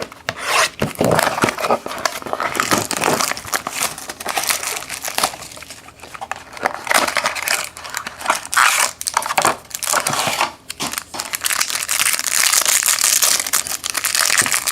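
Trading-card pack wrappers being crinkled and torn open by hand, an irregular crackling that goes on throughout and grows denser near the end.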